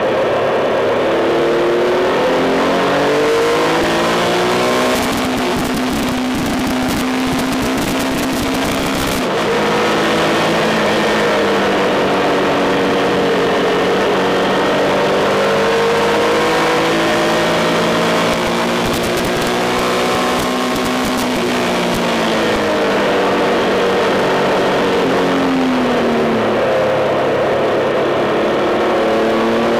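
Triumph Tiger 1200's three-cylinder engine under way, its pitch climbing under acceleration and dropping at gear changes and when slowing for corners. Wind noise rushes over the microphone a few seconds in and again about two-thirds through.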